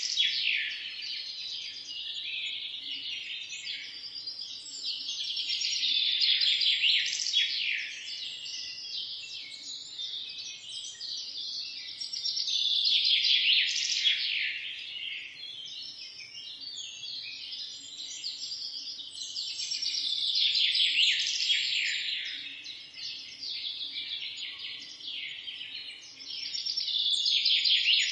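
Morning chorus of many small songbirds chirping and trilling at once, in dense overlapping song. It swells louder about every seven seconds and eases off between.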